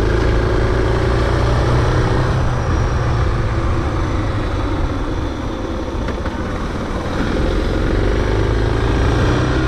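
Suzuki DR650's single-cylinder engine running at road speed, with wind rush on the microphone; its note eases down early on and climbs again near the end as the throttle opens.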